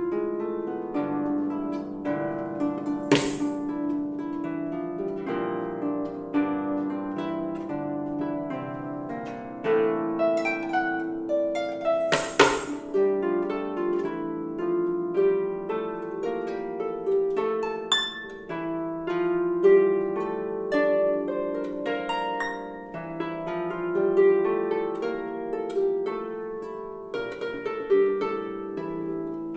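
Lever harp played solo: a steady run of plucked notes and ringing chords carrying a melody. Bell anklets jingle briefly twice, about 3 and 12 seconds in.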